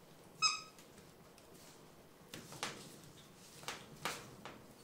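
A single short, high-pitched animal call from the pet cat or the young capuchin monkey about half a second in, followed by a few soft knocks and rustles.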